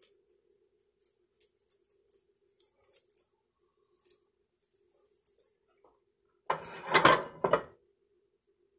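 Faint soft pats and small clicks of hands shaping a wet pinto-bean veggie burger patty, then a louder burst of handling noise with a few knocks about six and a half seconds in.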